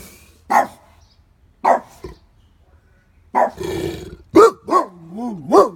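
Dogue de Bordeaux barking excitedly: deep single barks a second or more apart, then a rough growly bark. A quick pair of barks follows, and a wavering howl-like moan near the end.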